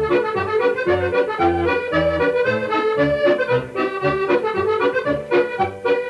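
Accordion playing a tune, a melody over a regular bass line.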